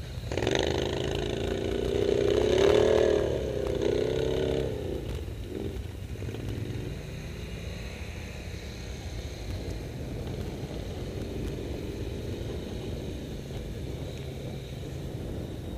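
ATV engine revving up and down for about four seconds near the start, then running quieter. A steady low rumble lies underneath throughout.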